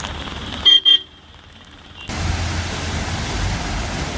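A vehicle horn gives two short toots less than a second in. A little after two seconds the sound cuts abruptly to a steady rushing noise with a low rumble.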